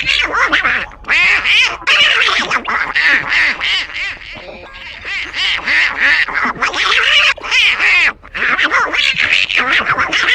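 Garbled, quacking, duck-like voice babbling continuously: an alien's speech coming through before the translator works.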